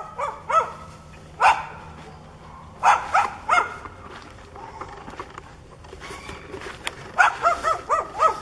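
A dog barking in bursts: several barks in the first four seconds, then a quick run of about six barks near the end.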